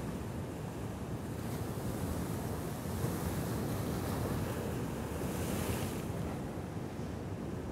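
Pacific Ocean surf breaking and washing over a rocky shoreline, a steady rumble and hiss that swells in the middle with a louder wash about five seconds in. Wind buffets the microphone throughout.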